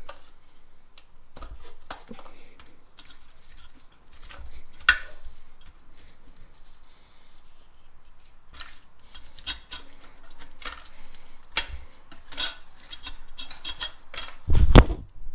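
Hands working in a car's engine bay, unclipping plastic wiring connectors and moving harnesses and hoses: scattered clicks, taps and rubbing. A loud, dull thump comes near the end.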